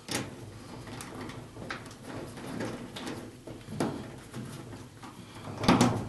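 Screwdriver working the terminal screws on a clothes dryer's power-cord terminal block: scattered small metallic clicks and scrapes about a second apart, with a louder clatter near the end.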